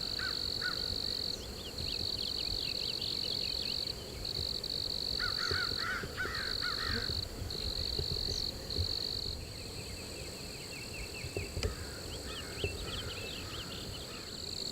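Morning woodland chorus: a high, steady insect trill repeating in stretches of about a second with short breaks, with small birds chirping in short runs now and then.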